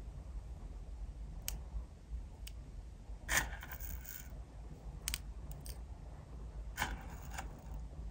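Tiny metal spoon clicking against a small bowl as it scoops and scatters sugar sprinkles, a handful of sharp clicks spread out, the loudest about three seconds in followed by a brief rattle of the little beads.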